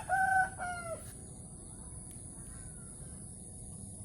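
Rooster crowing: the held final note of the crow, falling in pitch as it ends about a second in.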